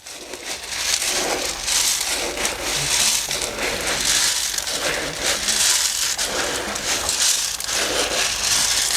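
Dry concentrate cattle feed, mixed with salt and baking soda, being stirred and turned over, a rhythmic rustling crunch that swells about once a second.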